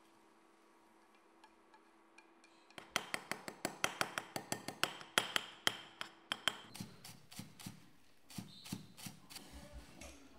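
Metal ladle repeatedly striking down into scrambled egg in a clay pot, chopping it into crumbs: sharp clicks of metal on the pot at about four or five a second, starting about three seconds in and growing sparser and softer after about seven seconds.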